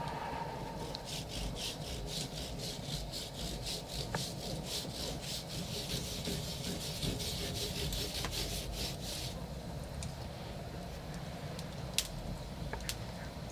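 Rhythmic rasping strokes, about four a second, that stop about nine seconds in, over a low steady rumble of a wood fire; two sharp crackles from the fire near the end.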